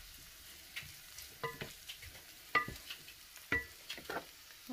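Diced onion sizzling softly in oil in a stone-coated pot as a wooden spatula stirs it, with about seven sharp knocks and scrapes of the spatula against the pot.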